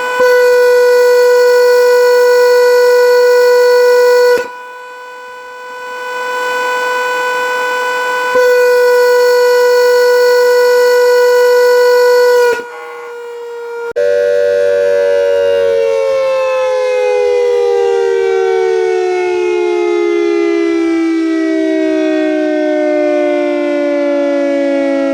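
Air raid siren sounding a loud steady tone, broken off abruptly twice by quieter gaps. From about halfway a siren winds down, its pitch falling slowly.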